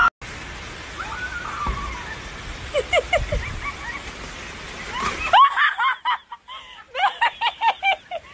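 Heavy rain pouring with a steady hiss and a few short cries. About five seconds in the rain noise drops away and a person laughs hard in quick, high-pitched peals.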